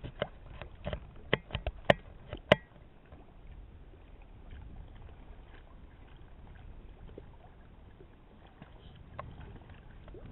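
A handful of sharp knocks over the first two and a half seconds, the last two the loudest, then only a faint steady low rumble.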